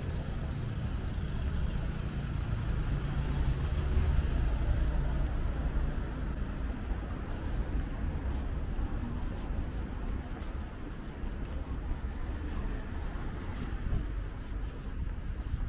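Steady low rumble of road traffic from a nearby road.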